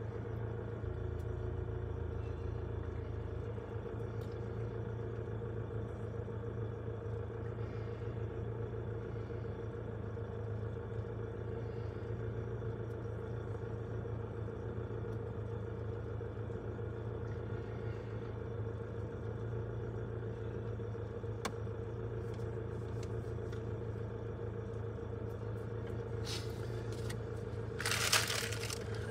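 A heavy diesel engine idles steadily with an even hum, heard from inside a vehicle's cab. Near the end there is a brief, louder burst of hiss.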